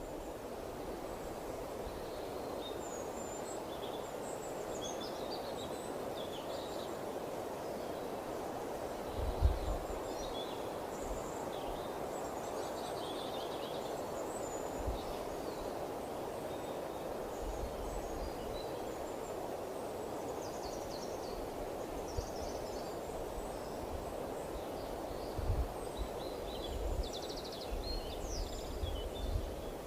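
Wind blowing in a steady rush, with small birds chirping and twittering high above it throughout. A few low thumps come through, the loudest about nine seconds in and several more near the end.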